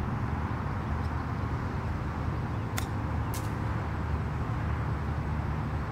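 Golf club striking the ball on a short, low pitch shot: a sharp click about three seconds in, then a second click about half a second later, over a steady low rumble.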